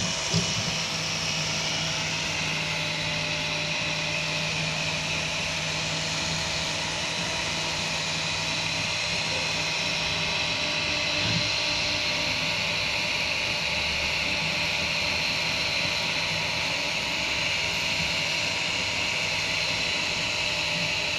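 Kingroon 3D printer running a print: the steady whir of its cooling fans and stepper motors, with a few steady tones over a hiss. A single short knock about half a second in.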